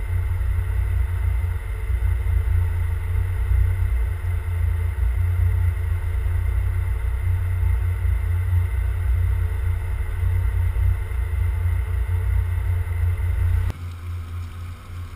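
Steady drone of shipboard machinery with a strong low rumble, holding a few constant tones. The rumble drops away abruptly about 14 seconds in, while a fainter hum continues.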